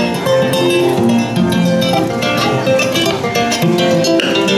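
Background music led by a plucked and strummed acoustic guitar, with notes changing steadily.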